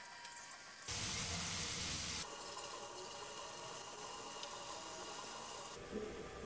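Marlin fish pieces with garlic sizzling as they fry in a nonstick pan: a steady sizzle, with a louder, brighter burst of sizzling lasting about a second that begins about a second in.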